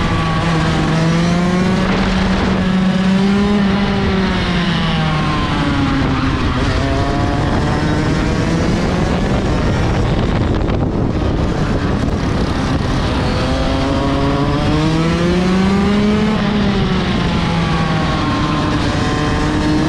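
Rotax 125 DD2 EVO two-stroke kart engine heard from the driver's seat at racing speed. Its pitch rises and falls twice as the throttle is opened and lifted through the corners, over a steady rushing noise.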